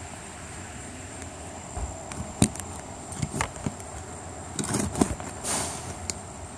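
Close-up handling noise: a scattering of sharp clicks and knocks and one short breathy puff about five and a half seconds in, as a small white dog noses right up against the recording phone, over a steady outdoor background hum.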